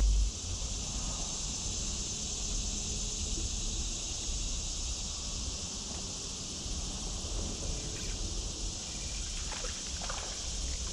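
Steady high-pitched drone of insects in the trees, over a low rumble. A couple of faint swishes come near the end.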